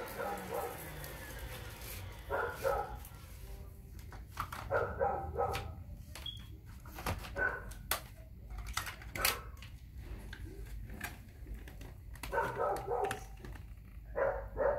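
Dyson Ball Multifloor vacuum motor winding down with a falling pitch, dying out about a second in. Then short barks come at intervals of a few seconds, with scattered light clicks between them.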